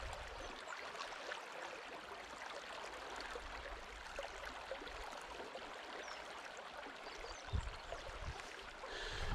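River water flowing over a shallow riffle, a steady rushing. A couple of low bumps come near the end.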